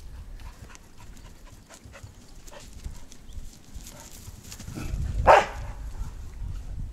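A dog barks once, short and sharp, about five seconds in, over faint scuffling and a low rumble.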